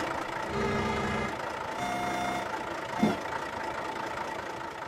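Cartoon sound effect of a construction vehicle: an engine running under a back-up beeper that sounds a long tone about once a second. There is a short gliding squeak about three seconds in.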